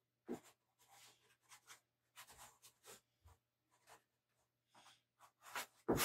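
Faint scratching of an art chalk stick drawn across paper in short, irregular strokes.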